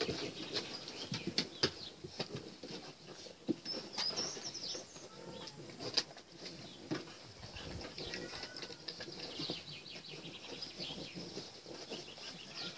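French bulldog puppies splashing and pawing at the water of a plastic paddling pool, with scattered taps and clicks of their claws on the rim. Small birds chirp in the background.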